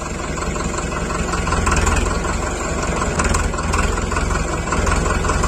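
Powertrac Euro 55 tractor's diesel engine running steadily at idle.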